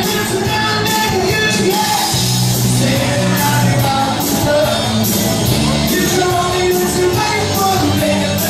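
A singer performing over loud amplified band music, with a steady drum beat, cymbals and bass under the sung melody.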